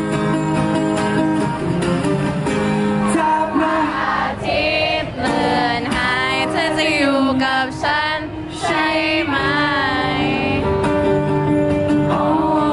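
Live acoustic performance: a man sings a melody in Thai over his own strummed acoustic guitar, amplified through a PA.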